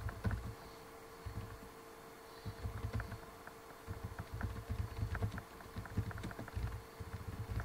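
Typing on a computer keyboard: irregular runs of key clicks with dull thuds, over a faint steady hum.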